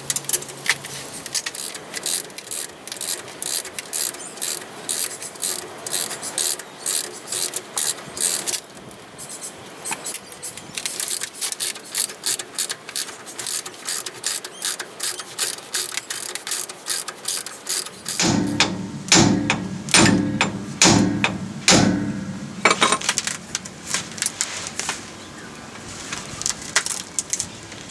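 Hand socket ratchet clicking in quick runs of strokes while undoing the nuts that hold a rear diff centre to the axle housing. The clicking pauses briefly about eight seconds in and turns fuller and heavier about eighteen seconds in.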